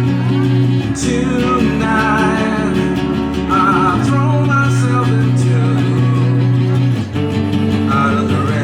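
Music: a guitar-backed song with singing.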